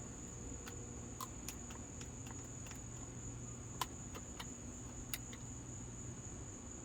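Steady high-pitched drone of insects such as crickets, with a dozen or so scattered light clicks and taps over a low background hum; no engine is running.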